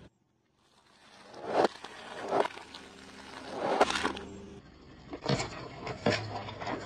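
A car tyre rolling over and crushing objects on concrete, heard as a series of crunches and crackles after a short silent gap. First an inflatable toy and potato-chip bags, then cardboard chip tubes full of coloured liquid give rapid crackling and popping near the end.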